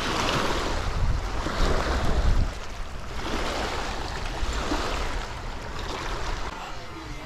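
Gusty wind buffeting the microphone over lake water washing against the bank. The low rumble of the gusts is strongest for the first couple of seconds, then eases.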